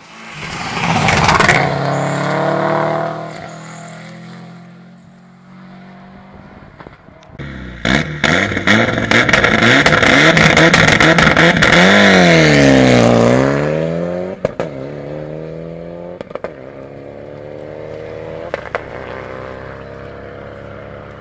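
Rally cars running flat out on a stage: one passes loudly at the start, then a second comes in louder with a rapid run of sharp crackles. The second car's engine note dips and then climbs again as it pulls away. Near the end a fainter engine revs up.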